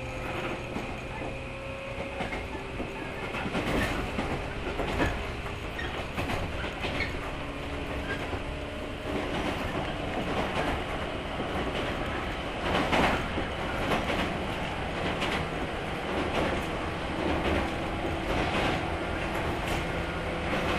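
Inside a JR 115-series electric multiple unit motor car (MoHa 115) running at speed: the wheels clack irregularly over rail joints over a steady rumble, with a low hum from the traction motors and gears beneath the floor.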